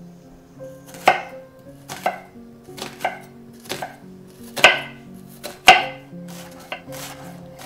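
Chef's knife cutting through an onion onto a wooden cutting board, a crisp knock about once a second.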